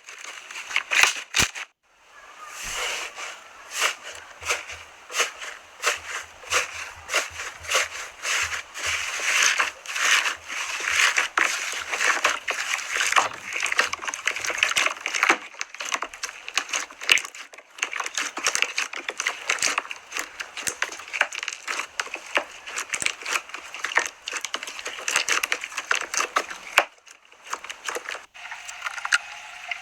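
Slime squeezed and pressed by hand, giving a dense run of small crackles and pops, with a brief pause about two seconds in.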